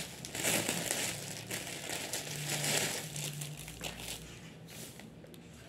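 Rustling and crinkling of a batik shirt and its packaging being unfolded and handled, loudest in the first few seconds and dying away toward the end.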